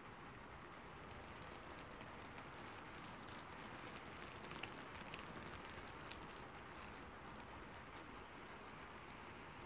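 Flat paintbrush dragging acrylic paint across a textured canvas board: a faint, scratchy rustle of bristles on the canvas grain, with small scattered ticks.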